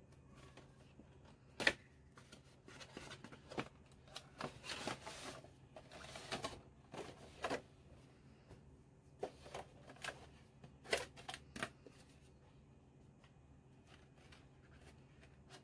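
Cardboard box and clear plastic blister tray being handled: irregular crinkling and rustling with sharp plastic clicks, the loudest a snap about a second and a half in. The handling dies down after about twelve seconds.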